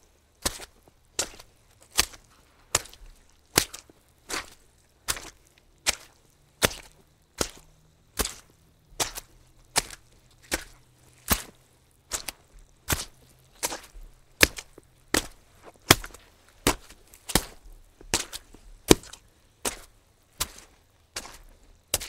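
Footsteps on soggy ground at a steady walking pace, a little more than one step a second.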